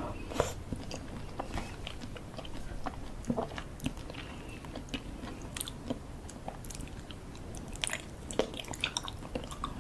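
Close-miked eating: someone biting into and chewing sweets and pastry, with irregular soft crunches and wet mouth sounds.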